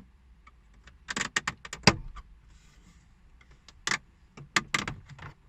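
Plastic retaining clips of a Volvo S60's instrument-cluster surround being pried loose with a thin tweezer-like tool: two clusters of sharp clicks and snaps, the loudest about two seconds in.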